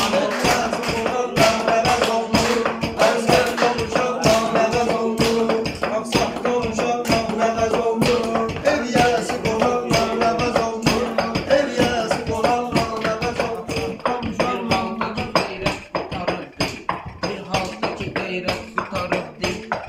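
Meyxana: a man chanting improvised rhyming verse in Azerbaijani over a fast, even percussive beat of about three sharp taps a second.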